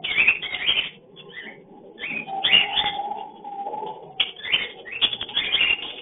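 Several caged lovebirds chattering in rapid, sharp chirps and squeaks, with a lull of about a second shortly after the start. This is the breeding-time calling of a lovebird pair.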